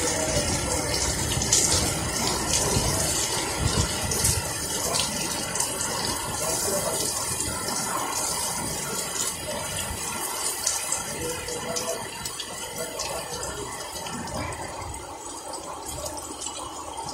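Heavy rain pouring down and splashing on a wet street, a steady hiss that grows gradually quieter through the later seconds.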